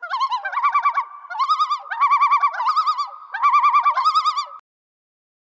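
A whistle-like warbling tone with a fast, even vibrato, sounded in short phrases and stopping abruptly a little over four and a half seconds in.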